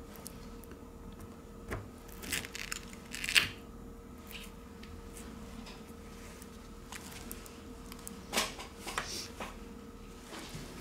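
Short crackling and tearing sounds as a plastic pry tool levers a smartphone battery free of its adhesive, the loudest about three and a half seconds in and a few more near the end.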